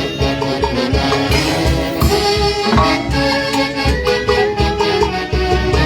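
Huayno band music: an instrumental passage with a steady, regular beat under sustained melody lines.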